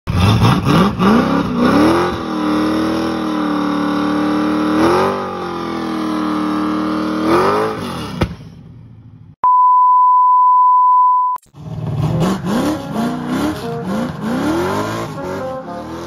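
Pontiac Firebird engine revving up and held at high revs while the rear tyres spin in a burnout, then dropping off about eight seconds in. A steady electronic beep follows for about two seconds, then the engine revs again in quick rising and falling blips with music starting beneath it.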